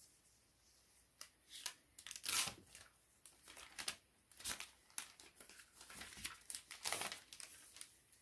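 Packaging being torn open and crinkled by hand: irregular rustling and crackling, loudest about two and a half seconds in and again near the end.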